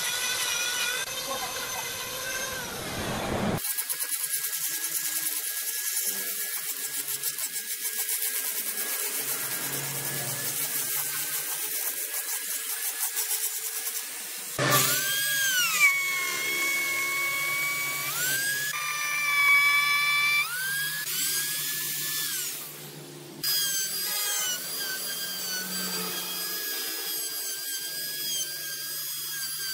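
Electric power carving tools working wood, their motors whining and gliding up and down in pitch as the speed changes. The sound switches abruptly a few times between different tools or passes.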